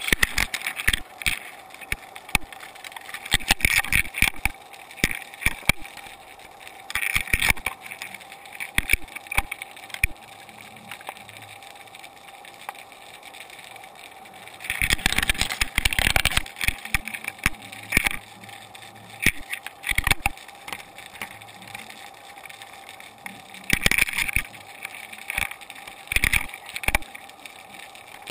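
Muffled underwater sound heard through a GoPro Hero 2's sealed waterproof housing as it hangs on its line: irregular clusters of sharp clicks and knocks over a steady faint hum.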